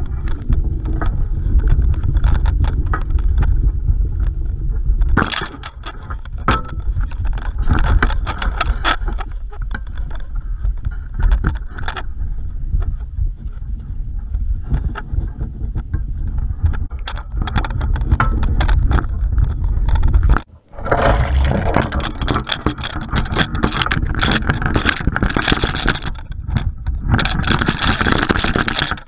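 Water sloshing and handling noise on an action camera fixed to a fishing lift net as the net is dunked and lifted. A heavy low rumble breaks off suddenly about two-thirds of the way through, and a hissing, splashing stretch full of small knocks follows.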